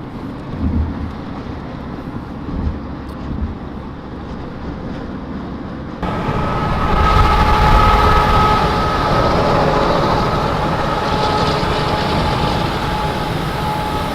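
Road and wind noise of a car at freeway speed alongside a semi truck, a steady low rumble that turns suddenly louder and fuller about six seconds in, with a faint steady drone over it.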